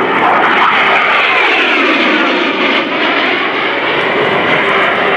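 AV-8B Harrier II's Pegasus turbofan jet engine, loud and steady as the jet flies by, its pitch falling over the first couple of seconds as it passes.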